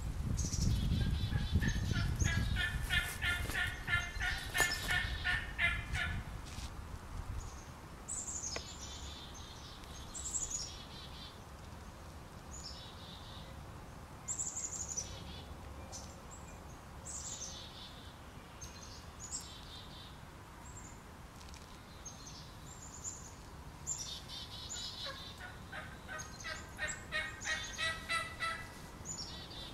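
Wild turkey gobbling: a rapid rattling run of notes in the first few seconds and again near the end, over a low rumble at the start. Short, high, falling bird chirps come every second or two in between.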